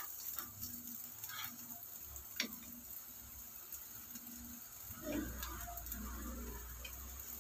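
Pancake frying in a pan with a steady sizzle, and a wooden spatula scraping and tapping against the pan, one sharp tap a little over two seconds in. A low rumble joins for the last couple of seconds.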